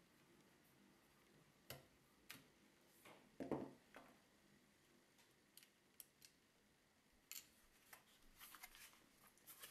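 Faint, scattered small clicks and taps of a screwdriver, a tiny screw and a mini PC's plastic case being handled while the firmware write-protect screw is unscrewed, with one louder knock about three and a half seconds in and a run of small clicks near the end.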